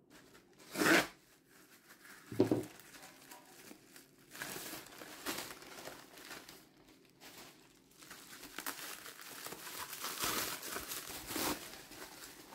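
Keyboard packaging being unwrapped by hand: protective wrapping crinkling and tearing in irregular stretches, with two sharp knocks against the box about a second in and again about two and a half seconds in.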